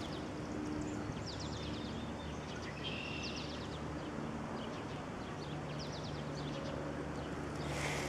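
Birds singing around a pond: several quick trills of short, high falling notes, over a steady outdoor background. A brief rush of noise comes near the end.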